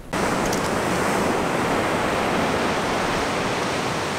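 Ocean surf breaking on the beach, with wind, heard as a loud steady rush that cuts in suddenly at the start.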